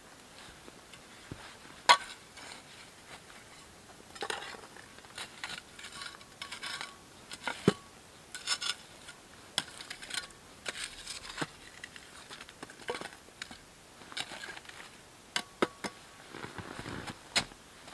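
A hand tool scraping the ground around a small metal can and knocking against it. The scrapes and clicks come irregularly, a few of the knocks with a short metallic ring, the sharpest about two seconds in.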